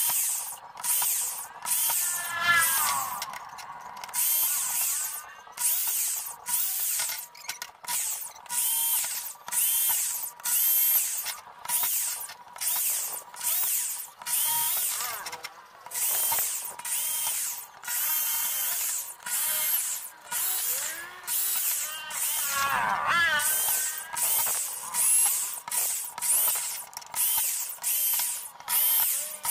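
Cordless drill with a hex socket bit turning screws on a cast-iron burner head, in short trigger bursts about one a second. Each burst is a whining spin-up of the motor that stops when the screw seats.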